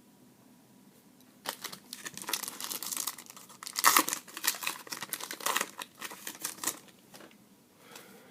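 A trading card pack wrapper being torn open and crinkled in the hands. It starts about one and a half seconds in, is loudest around the middle and dies away near the end.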